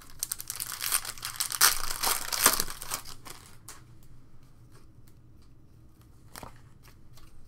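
A Panini Prizm baseball card pack's foil wrapper being torn open and crinkled for about three seconds. After that, a few sharp clicks from the cards being handled.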